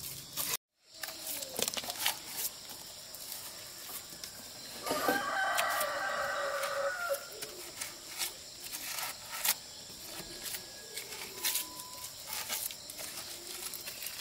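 A rooster crowing once, a single call of about two seconds near the middle, over scattered clicks and knocks.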